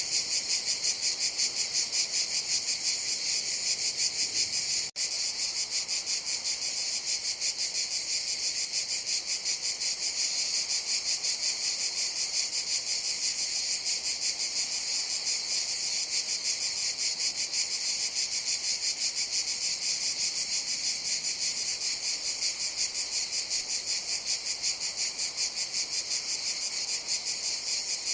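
Cicadas buzzing in a steady, dense, high-pitched chorus with a fine rapid pulsing, cutting out for an instant about five seconds in.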